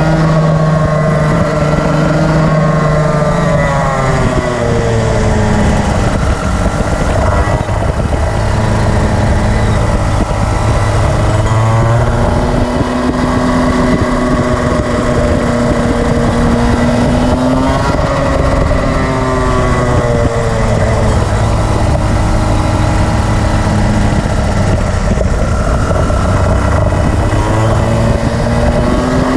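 Rotax Max Senior 125cc two-stroke single-cylinder kart engine at racing speed. Its pitch drops several times as the driver lifts for corners, then climbs back as he gets on the throttle again.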